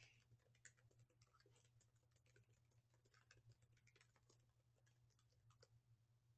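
Faint typing on a computer keyboard: irregular soft key clicks over a low steady hum.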